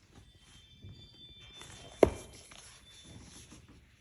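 Faint rustling as the contents of a box set are handled, with a single sharp thump about halfway through.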